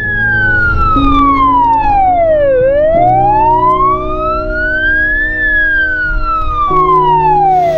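Emergency vehicle siren on a slow wail, sweeping down, up and down again, each sweep about two and a half seconds. Sustained background chords and a low rumble lie underneath.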